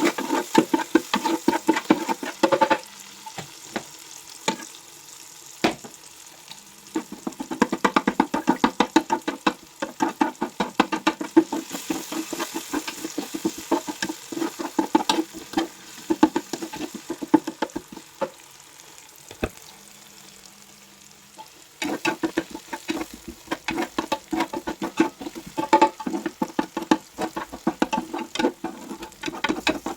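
Fried rice frying in a pan and being stirred with a spatula: quick, repeated scraping strokes over a steady sizzle. The stirring pauses twice, a few seconds in and again about two-thirds of the way through.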